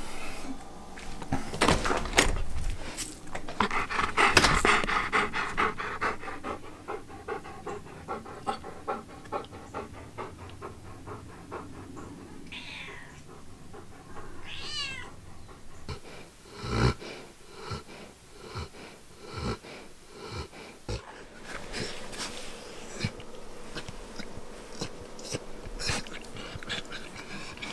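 An Old English Sheepdog's small noises: panting and huffing breaths and snuffles, with a couple of short, high, wavering whines about halfway through.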